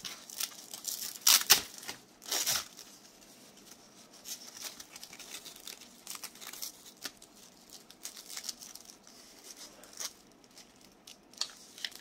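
Hook-and-loop strap of a Snakestaff Systems ETQ tourniquet being pulled apart in two short ripping tears, about a second and a half and two and a half seconds in, followed by quieter rustling of the nylon webbing and light clicks of its plastic parts as it is handled.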